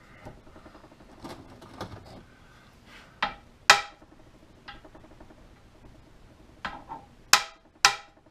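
Hammer tapping on a steel driveshaft yoke, about six sharp metallic strikes with a brief ring, the hardest two about 3.5 s apart. The taps work a snug, newly fitted U-joint until it turns more freely.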